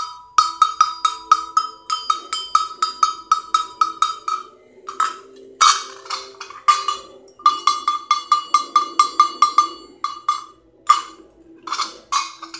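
A hand-held sheet-metal cowbell-type animal bell shaken so its clapper clanks in quick runs of about four strokes a second, each stroke ringing at one clear metallic pitch, with brief pauses between runs.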